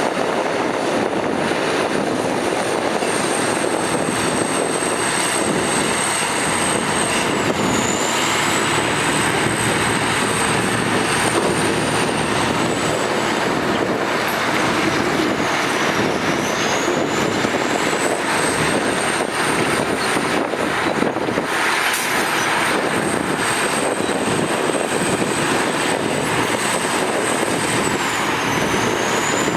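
Heavy diesel earthmoving machinery, bulldozers working soil, running steadily under load, with a thin high whistle above it that dips in pitch three times.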